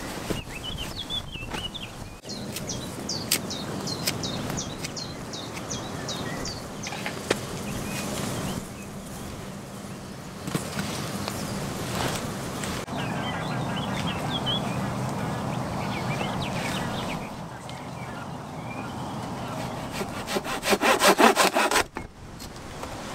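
Small birds chirping over the rustle and knocks of camp work. Near the end comes a short, loud run of quick, even strokes of a hand saw cutting through a wooden board.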